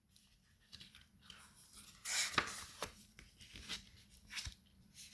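Faint rustling and a few small clicks, with a short, louder rustle about two seconds in, like paper or something being handled close to the microphone.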